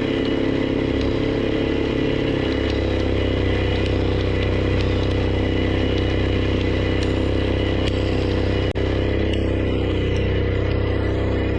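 Background music: a sustained, droning chord with a heavy low end, held steady, with a brief dropout late on.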